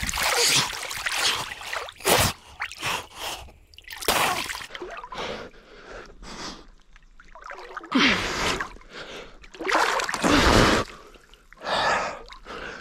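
A man's heavy gasping breaths while swimming in cold river water, coming in separate bursts a second or more apart, with water splashing and dripping around him. The gasping is from exertion against the current and the cold.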